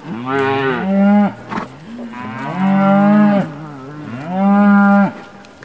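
Cattle mooing: three long moos, one after another, each holding a steady pitch before dropping away at the end.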